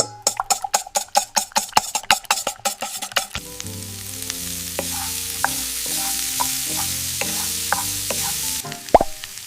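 A utensil clicks rapidly against a bowl, about eight strokes a second, as something is stirred. Then food sizzles in a hot frying pan for about five seconds, stopping with a sharp knock near the end. Light music plays underneath.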